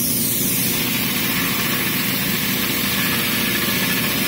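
Leco BG-32 dual belt grinder running with water flowing over its silicon carbide belts: a steady motor hum with a wet hiss. From about half a second in, a resin-mounted sample pressed onto the 240-grit belt adds a steady grinding hiss.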